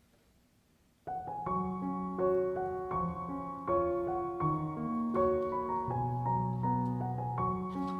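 Background piano music, a gentle melody of sustained notes, starting after about a second of near silence.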